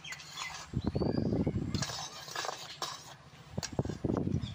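Metal spatula scraping and clinking against an iron kadai while stirring jaggery syrup boiling in the pan, in two spells of about a second each.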